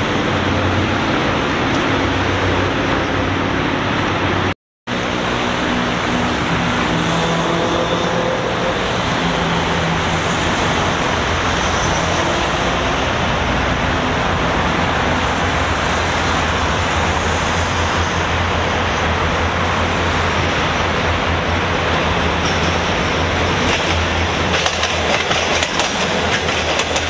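Diesel railcar express train approaching and passing close: its diesel engines run under a steady din of rail noise, with wheels clacking over the rail joints near the end. The sound drops out briefly about four and a half seconds in.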